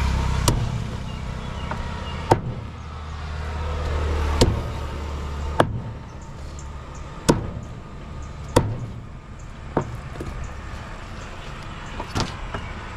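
A heavy cleaver chopping through a large catla fish on a cutting block: about nine sharp chops, unevenly spaced one to two seconds apart. A low steady rumble sits underneath in the first half and fades out about halfway.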